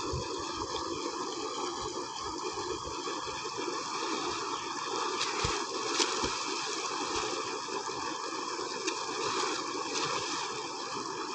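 Tubewell water gushing steadily from its outlet pipe into a concrete tank, a continuous rushing and churning splash.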